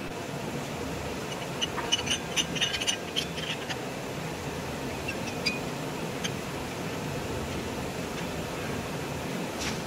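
Light metallic clinks and taps of steel separator parts and a steel bar being handled, bunched together a couple of seconds in, with a few single ones later and a sharper click near the end, over a steady workshop hum.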